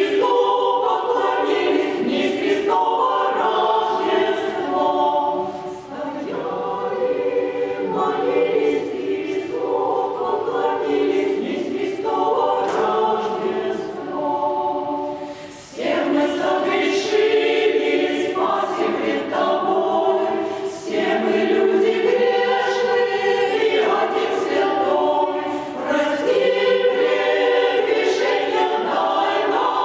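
Women's choir singing an Orthodox Christmas chant a cappella in several parts, with a short break about halfway through before the next phrase begins.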